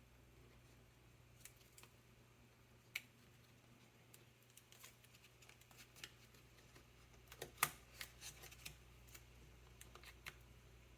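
Scattered light clicks and taps of hands and small parts on an opened laptop's plastic and metal internals, with a cluster of louder clicks about seven to eight seconds in.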